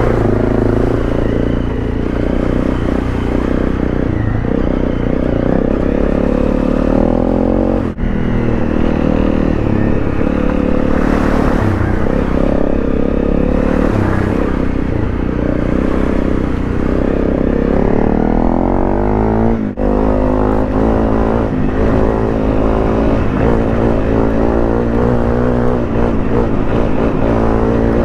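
Single-cylinder trail motorcycle engine, a Honda CRF250 Rally, running under way on a muddy off-road trail. The revs rise and fall with the throttle, with two momentary drops in sound, about a third and about two thirds of the way through.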